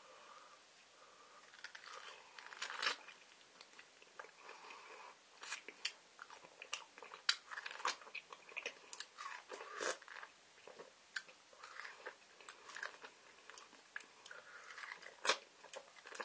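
A person biting and chewing food close to the microphone, with mouth clicks and smacks at an irregular pace and one sharper, louder click near the end.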